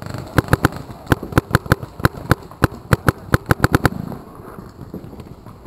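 Paintball markers firing in rapid, uneven volleys of sharp pops, several shots a second, thinning out about four seconds in.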